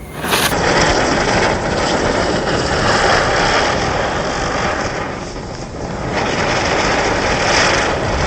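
A ground firework burning with a steady, loud rushing hiss, easing off a little in the middle and building again.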